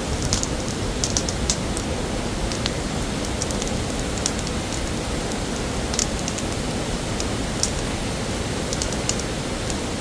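Waterfall rushing steadily, with scattered sharp crackles and clicks on top.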